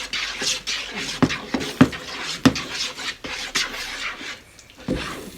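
Slime mixture of glue and shaving cream being stirred in a bowl: a spoon scrapes and rubs around the bowl, with several sharp knocks against its side.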